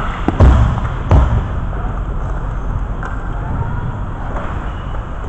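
Two heavy knocks close to the microphone, about half a second and a second in, as the camera mounted on the hockey goal is handled and set in place; then steady background noise with a low hum.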